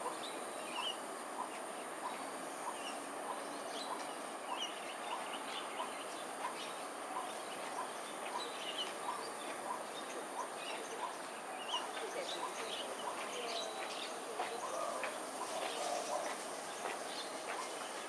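Birds calling: one short note repeated steadily about every two-thirds of a second until near the end, with scattered higher chirps over a steady high hiss.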